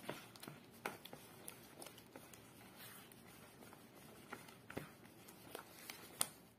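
Silicone spatula stirring thin flour batter in a plastic bowl: faint, irregular soft taps and scrapes against the bowl's side.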